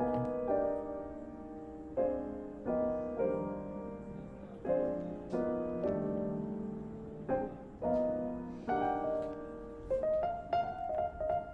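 Background piano music: chords and notes struck about once a second, each fading before the next.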